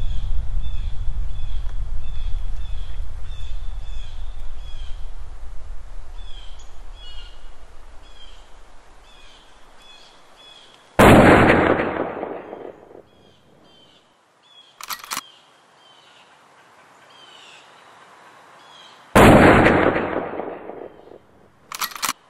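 Birds chirping rapidly over a low rumble that fades away, then two loud sudden bangs, like gunshots, each with a long decaying tail. Each bang is followed a few seconds later by a short sharp click.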